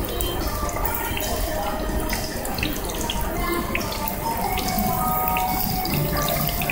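Breadcrumb-coated kushiage skewers deep-frying in a tabletop fryer's hot oil: a steady sizzle full of small crackles and pops.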